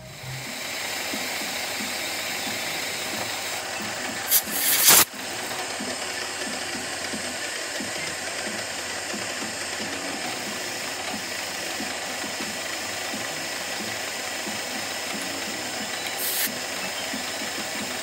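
Milling machine spindle running with an end mill cutting into the cast-iron saddle of a Grizzly G0704 mill, a steady machining noise. A brief, loud harsh noise breaks in about five seconds in, and a smaller one near the end.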